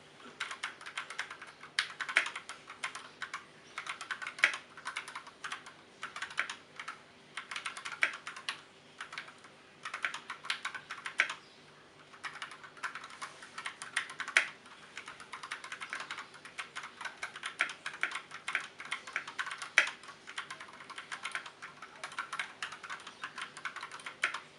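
Fast typing on a Koodo Arcadia 68% mechanical keyboard with unlubed Gateron Brown tactile switches and Akko Carbon Retro ASA-profile keycaps. The key clacks come in quick runs, broken by brief pauses every few seconds, and a few strikes are noticeably louder.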